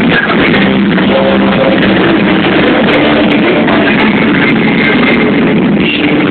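Loud rock music played live by a band, with electric guitar and a drum kit, running without a break.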